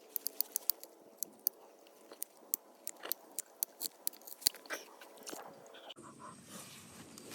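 Hand pipe cutter biting through a water pipe: a run of sharp, irregular clicks and crunches, several a second. They stop about six seconds in, leaving a faint steady background.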